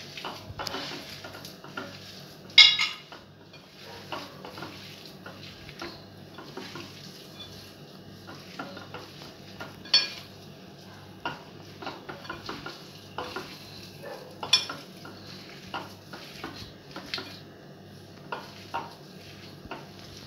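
Boiled potatoes being mashed by hand with spices in a glass bowl: soft squishing with irregular light clicks and knocks of the glass bowl, the sharpest about two and a half seconds in and again around ten and fourteen seconds.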